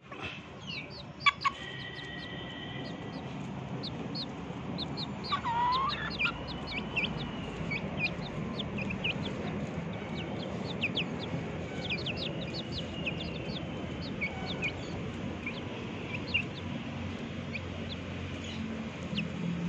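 Young chickens peeping over and over: many short, high, falling peeps, with one longer curving call about five seconds in. Two sharp taps about a second and a half in are the loudest sounds.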